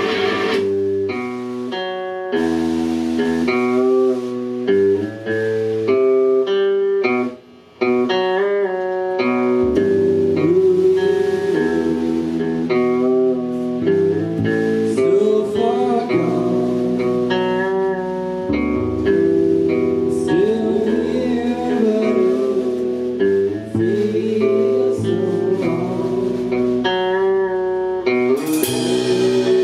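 Live rock band playing an instrumental stretch of a song: two electric guitars, one a doubleneck, over a drum kit, with bent notes. The band drops out for a moment about seven seconds in.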